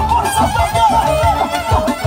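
Clarinet playing a fast, ornamented melody with quick turns and bends, over live band accompaniment with a steady pulsing bass.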